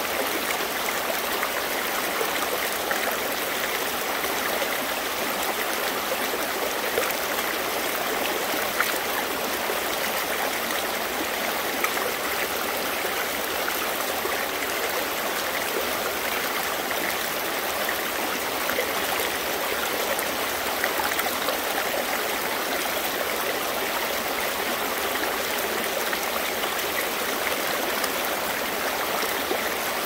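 Shallow river water rushing fast over a rocky bed, close by: a steady, even hiss of running water with splashing and little low rumble.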